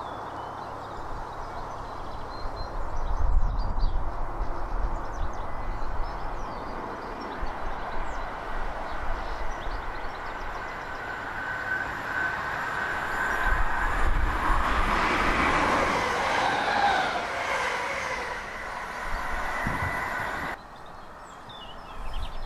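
A Class 321 electric multiple unit running through on the line: a steady rumble of wheels on rail that swells twice, loudest in the second half with thin high tones ringing over it, then cuts off abruptly near the end.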